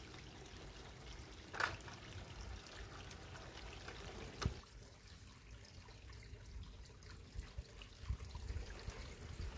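Faint, steady trickling of water, with a low rumble and two sharp clicks about one and a half and four and a half seconds in.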